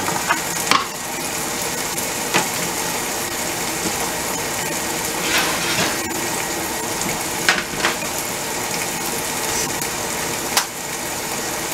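Steady hiss with a faint low hum, broken by a few light knocks of a wooden cutting board and kitchen things set down on a countertop, the first about a second in.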